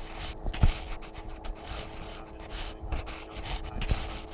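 Irregular rustling and rubbing, like fabric or clothing being moved, with two dull knocks, one just after the start and one near the end, over a faint steady hum.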